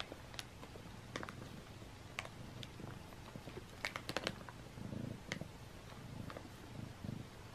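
Domestic cat purring steadily, a low rumble that swells and eases with its breathing, under scattered sharp clicks and crinkles of tissue paper and the plastic basket as the cats nose through it, a quick cluster about four seconds in.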